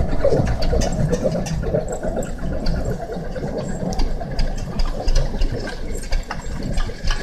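Zetor tractor's diesel engine running roughly and unevenly with scattered knocks, just caught after a hard cold start in deep frost. It is loudest for the first couple of seconds, then a little fainter as the tractor moves away.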